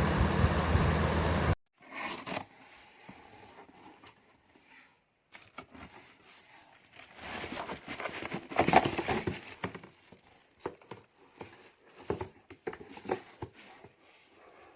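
A portable fan heater's fan blows steadily, then cuts off abruptly about a second and a half in. After that come irregular rustling and clicking handling noises, loudest around the middle.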